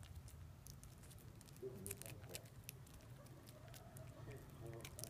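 Small Pomeranian puppy gnawing and licking a stick chew treat: faint, irregular little wet clicks of teeth and tongue on the stick.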